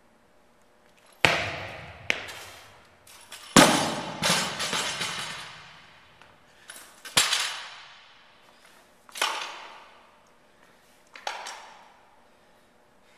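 Barbell loaded with bumper plates dropped onto a lifting platform: a series of loud crashes with a metallic ring, the loudest about three and a half seconds in. Smaller crashes follow every couple of seconds, each dying away.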